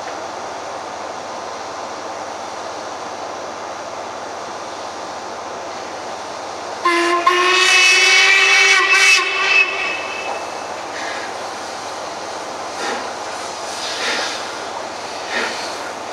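Steam whistle of LMS Royal Scot class locomotive 46115 Scots Guardsman, sounding once for about three seconds a little before halfway through, several tones together, loud over the steady noise of the passing train. A few short sharp sounds follow near the end.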